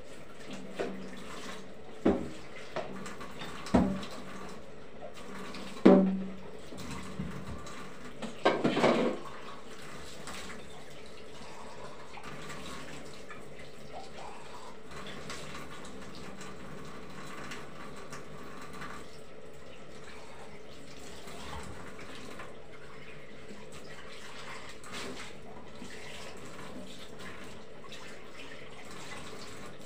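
Tap water running into a kitchen sink while dishes are washed by hand, with several clinks and knocks of pots and dishes in the first nine seconds, the loudest about six seconds in, then a steady flow of water.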